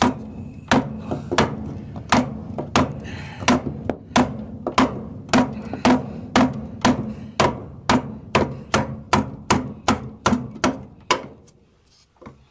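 Rapid hammer blows, about three a second, keeping an even beat and stopping about a second before the end.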